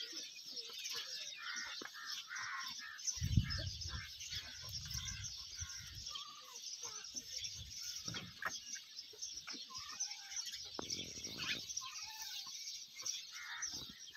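Small birds chirping and twittering steadily, with a low rumble from about three seconds in that lasts a few seconds and a weaker one near eleven seconds.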